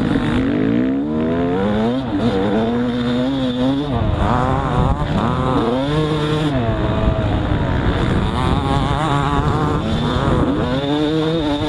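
Dirt bike engine revving up and dropping back again and again as the rider accelerates and shifts gears around a motocross track. The pitch climbs and falls several times, over a rough rush of wind and track noise.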